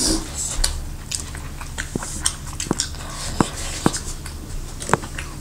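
A person eating: chewing and biting, with a string of short, sharp mouth clicks and smacks.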